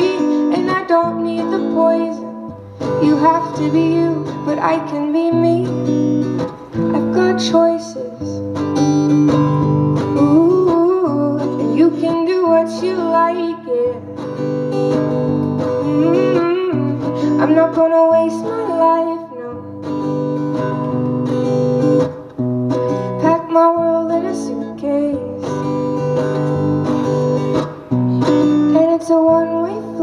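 A woman singing a song while strumming an acoustic guitar, the voice carrying the melody in phrases over sustained guitar chords.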